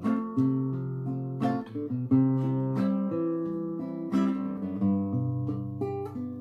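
Classical guitar strummed alone, chords struck about once a second and left to ring as they change.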